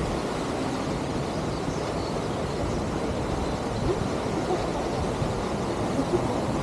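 Steady rushing roar of falling water from a waterfall, an even noise that holds at one level throughout.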